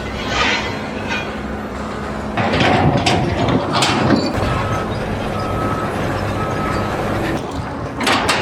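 A heavy engine running steadily with scattered knocks and clanks, and three short high beeps about a second apart in the middle.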